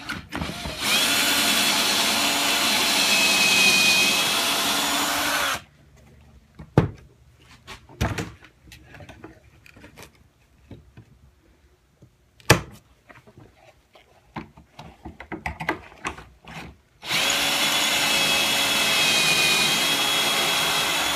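Cordless drill drilling pocket holes in wood in two steady runs of about five and four seconds, its pitch rising slightly during the first. Between the runs come scattered clicks and knocks of handling.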